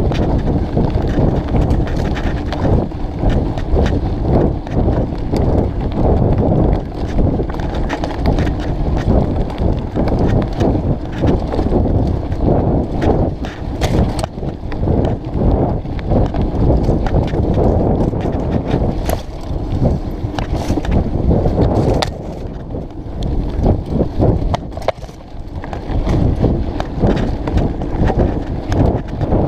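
Mountain bike riding rough forest singletrack: a continuous clatter and rattle of the bike over the uneven ground, full of sharp knocks. It eases for a few seconds past the middle, then picks up again.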